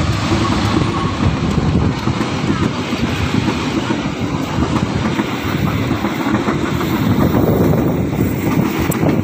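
KA Pasundan passenger train's coaches rolling past at close range: a loud, steady rumble with the clatter of steel wheels on the rails.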